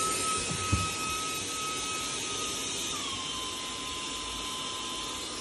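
Stick vacuum cleaner running, a steady high motor whine over airflow hiss; the whine drops slightly in pitch about three seconds in.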